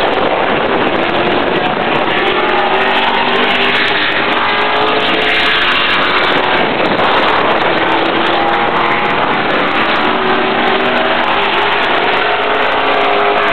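Late model race car V8 engine running at speed on a race track, loud and steady, with its pitch sweeping down and back up about halfway through.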